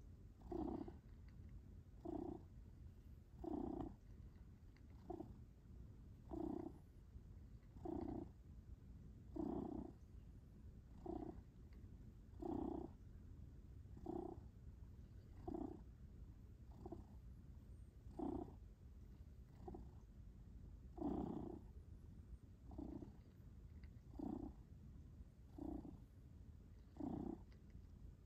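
Domestic cat purring steadily, close up, with a louder swell about every second and a half.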